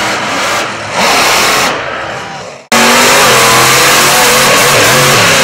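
Monster truck engine revving hard, its pitch rising and falling. About halfway through the sound cuts out for an instant and comes back louder.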